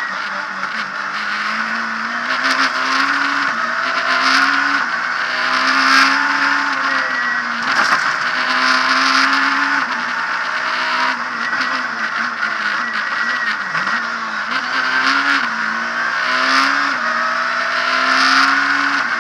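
Abarth Punto S2000 rally car's 2.0-litre four-cylinder engine, heard from inside the cabin, revving hard and climbing through the gears. The revs rise and drop back at a shift every two to three seconds, with a brief dip in revs about two-thirds of the way in.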